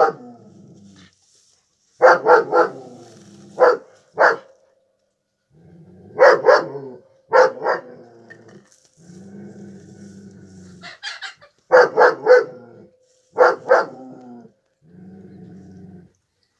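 Dog barking in quick pairs and triplets, with low growls between the barks.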